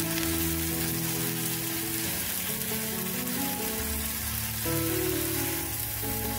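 Tofu slabs sizzling steadily as they pan-fry in oil in a nonstick frying pan, with background music of held notes over it.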